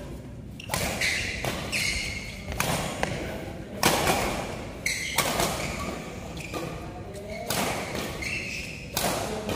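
Badminton rally: a string of sharp racket-on-shuttlecock hits about a second apart, with short squeaks of shoes on the court floor between them.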